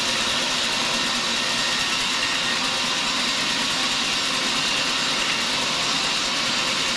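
Sawmill saw cutting through a large mahogany log, a steady, even, high-pitched noise that keeps up without a break.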